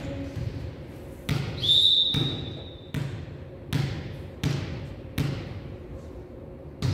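A basketball dribbled on a hard gym floor: about seven bounces, a little under a second apart, each ringing in the hall. A short high squeak sounds about one and a half seconds in.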